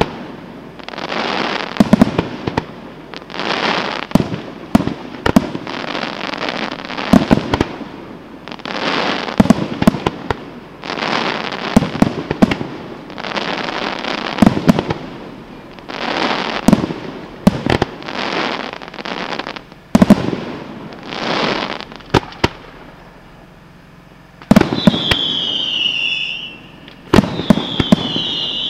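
Aerial firework shells bursting in quick succession, each cluster of sharp bangs followed by about a second of crackling, about every one to two seconds. Near the end, high firework whistles falling in pitch join in.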